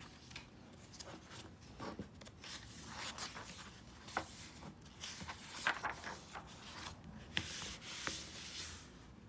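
Soft rustling and rubbing of paper as a picture book's pages are handled and turned, with a few small clicks and longer swishes near the end.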